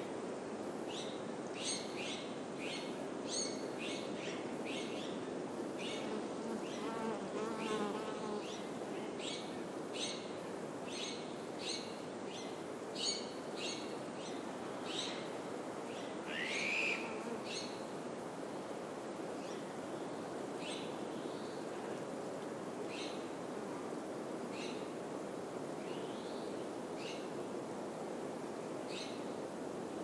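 Small birds calling with short, sharp chirps over a steady hush of wind in pine trees. The chirps come thickly at first and more sparsely later, with one louder sweeping call just past halfway.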